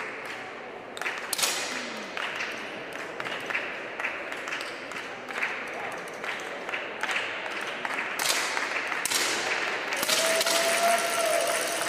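10 m air pistols firing scattered single shots, each a short sharp pop over the hubbub of a sports-hall crowd. About ten seconds in, applause breaks out and grows louder.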